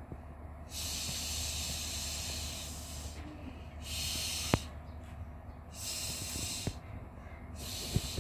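Water from a toy sink's faucet running in several short hissing bursts while a small toy plate is rinsed, with a few light plastic clicks in between.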